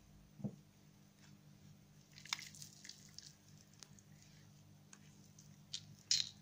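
Shiny slime being stretched and squeezed by hand: faint sticky squishing with scattered small clicks and pops, the loudest pop coming near the end.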